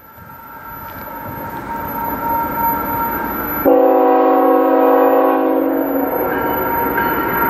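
An approaching CN freight train's locomotive air horn sounds one long multi-note chord blast about halfway in, lasting a couple of seconds. It plays over the rising rumble of the oncoming train, which grows louder through the first few seconds.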